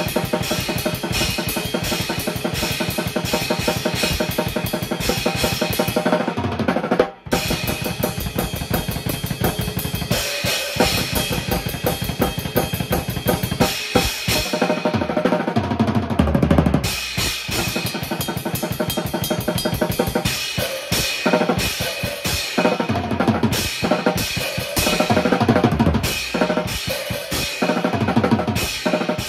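A drum kit played fast and steadily, with bass drum, snare and cymbals, breaking off for an instant about seven seconds in before carrying on.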